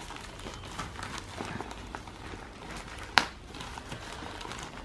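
Plastic courier mailer bag around a heavy box rustling and crinkling faintly as hands press and pick at it, with one sharp snap about three seconds in.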